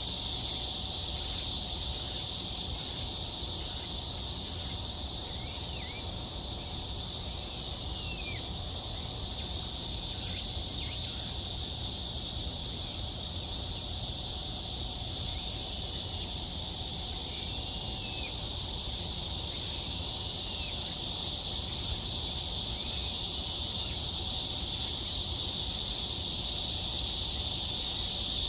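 Steady, high-pitched chorus of insects, with faint short chirping calls every few seconds.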